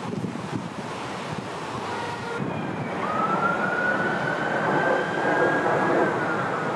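Wind buffeting the microphone, then, after a cut, a siren wailing: its pitch rises slowly for a few seconds and falls away near the end.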